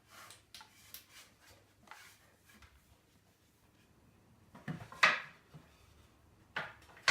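Light wooden knocks and clatter as the wooden shelf unit is handled, followed by two short sliding scrapes, the second near the end.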